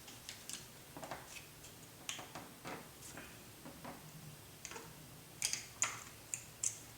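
Light, irregular clicks and taps of small metal parts and a hex driver being handled while a grub screw is fitted into the motor's pinion gear, a few sharper clicks near the end.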